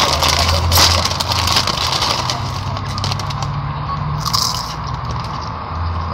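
Crinkling and crackling of a plastic chip bag handled right against the microphone, busiest in the first two seconds or so, over a low steady hum. A short hiss comes a little past four seconds in.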